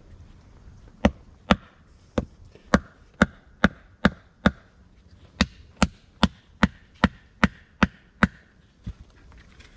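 Wood being chopped: a run of about sixteen sharp strikes, roughly two and a half a second, with a pause of about a second midway.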